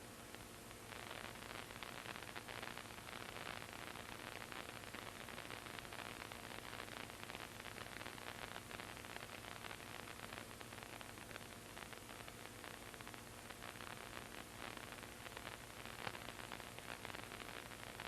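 Steady static hiss with a faint low hum underneath, getting a little louder about a second in.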